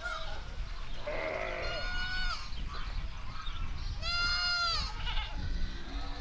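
Bleating livestock: two long, clear bleats about two seconds apart, with a shorter, lower call just before the first, over a steady low rumble.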